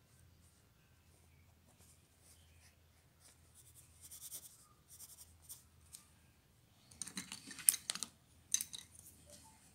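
Graphite pencil scratching on drawing paper in short sketching strokes, mostly faint, with louder bouts of scratching about four seconds in and again between seven and nine seconds.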